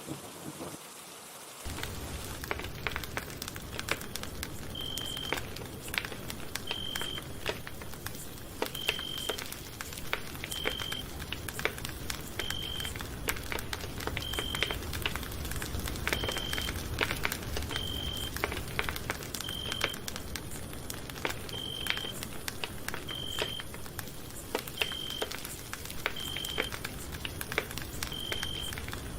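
Campfire crackling: burning wood hisses steadily with many sharp pops and snaps, starting abruptly about two seconds in. A short high beep repeats about every two seconds from about five seconds in.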